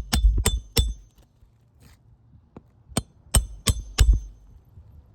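Hammer blows driving roofing nails through an asphalt shingle with a roof snake tool slipped under the lifted tab, each strike ringing briefly like metal. Three quick strikes, a pause of about two seconds, then another run of four.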